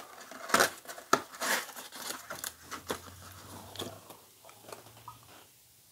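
A glass perfume tester bottle is being worked out of its tight white cardboard box. It makes irregular scraping and rustling of card, with a few sharp clicks, that thin out after about four seconds.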